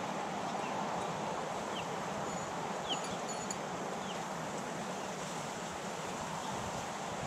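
Steady rushing noise of wind and river water on an open bank, with a few short, high falling chirps and a light tap about three seconds in.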